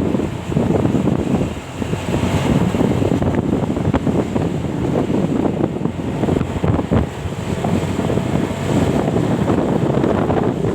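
Wind buffeting the microphone over a low, steady rumble of passing road traffic.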